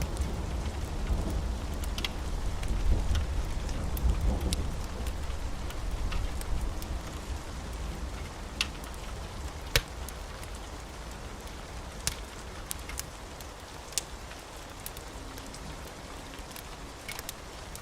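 Steady rain with a low rumble of thunder during the first several seconds that slowly fades out, and scattered sharp crackles over the rain.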